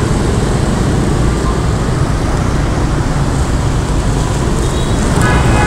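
Steady noise of busy city street traffic, with a short high pitched tone about five seconds in.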